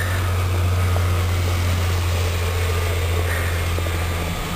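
City bus's diesel engine running past at low speed, a steady low drone that drops off near the end.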